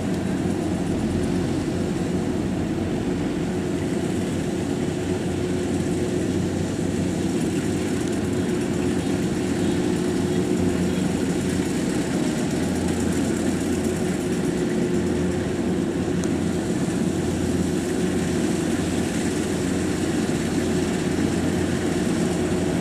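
Kubota DC-93 rice combine harvester's diesel engine running steadily under load as the machine cuts and threshes rice, with the hum of its threshing drum and fan.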